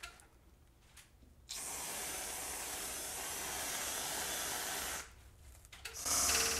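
Aerosol whipped-cream can spraying: a steady hiss lasting about three and a half seconds that stops abruptly, then a second, louder burst of spraying starts near the end.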